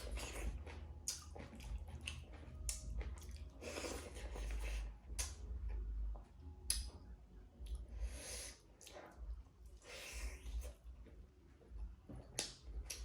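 Close-miked eating of pork with rice and dal: irregular wet chewing, smacking and squelching, with small clicks.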